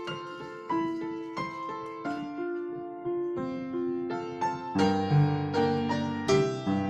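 Solo piano playing a slow melody of single struck notes that ring on. About two-thirds of the way through, low bass notes come in and it grows fuller and louder.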